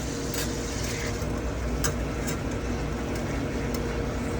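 Tuna steak sizzling in a frying pan over a steady low hum, with a few sharp clicks about half a second and two seconds in.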